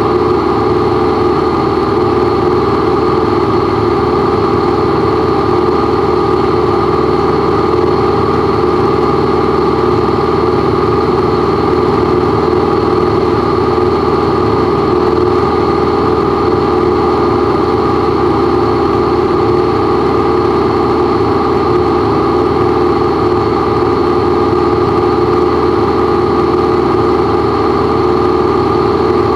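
Light aircraft's piston engine and propeller running at a steady, unchanging power, heard as a loud drone inside the cockpit.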